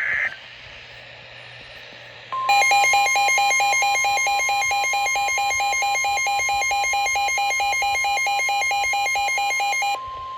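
Weather radio tornado warning alert: a short data-burst tone ends right at the start, then after about two seconds the long steady warning alarm tone begins. A fast, repeating two-pitch electronic beeping runs over it for most of the rest, stopping near the end while the steady tone carries on.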